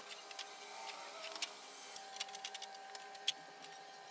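Faint, scattered light clicks and taps of a thin wooden strip being handled against a plywood boat hull, with one sharper click about three seconds in.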